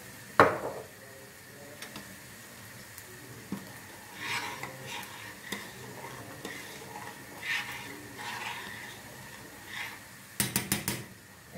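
Stirring vermicelli into a stainless steel pot of boiling tomato soup, with utensil scrapes against the pot. There is one sharp clink about half a second in and a quick run of metallic clinks near the end.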